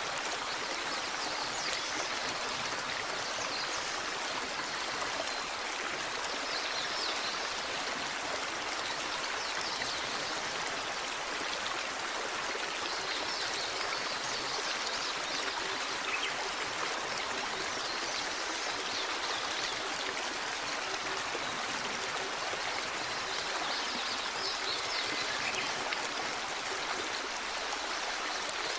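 Small waterfall splashing and rushing steadily into a stream. Faint high chirping comes and goes over it every few seconds.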